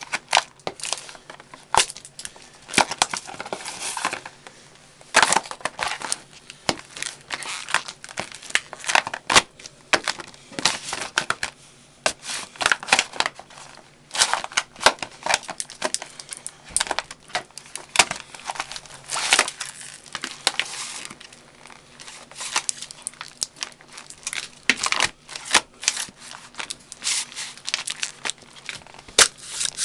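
Danner Mountain Light hiking boots stomping on and crushing drinking cups: irregular crunching and crackling in clusters, with a few sharper, louder crunches.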